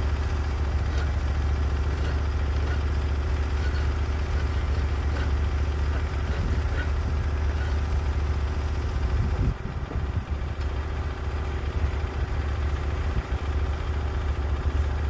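Engine of a Norwood HD36v2 portable sawmill running steadily with a deep hum. About nine and a half seconds in, the sound drops a little and turns more uneven.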